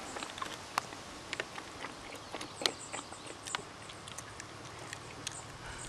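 Irregular faint clicks and taps, a few a second, over a low hiss, with a few short, very high chirps.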